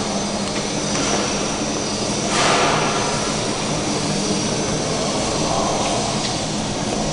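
Packaging-line machinery running with a steady hum, a short burst of hiss about two and a half seconds in, and a few light clicks.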